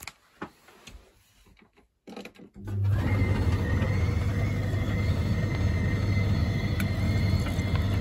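Condensate pump of a Samsung heat pump tumble dryer switching on about two and a half seconds in, after a few faint clicks, then running with a steady electric hum. The pump is working.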